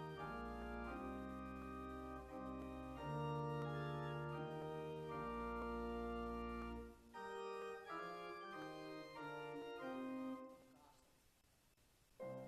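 Organ playing sustained chords over deep bass notes, changing every second or two, then dying away about ten seconds in. It comes through the building-audio line rather than a direct organ feed, where the organ is not quite as loud.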